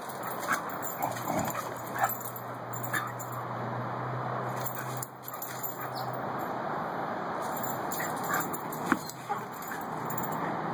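Two dogs, a Rhodesian Ridgeback puppy and an older dog, at rough play, with short yips, whimpers and barks now and then, sharpest about two seconds in and near nine seconds.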